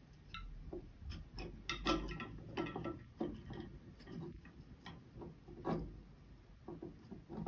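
Light, irregular clicks and knocks of hollow bamboo tubes tapping against each other and the bamboo frame as a bamboo xylophone's pieces are handled and hooked into place, a few of the taps ringing briefly.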